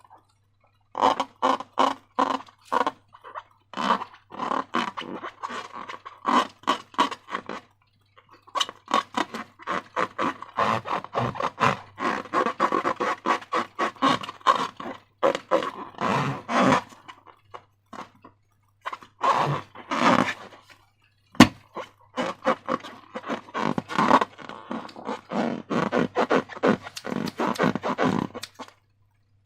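Slime squeezed and squished by hand, in bursts of rapid squelching clicks with short pauses between them and one sharp snap a little past twenty seconds in.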